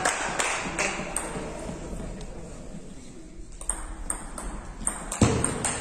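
Table tennis ball clicking: a few taps in the first second, then, after a short lull, a rally with the ball clicking off bats and table a few times a second. The loudest stroke is a heavier knock about five seconds in.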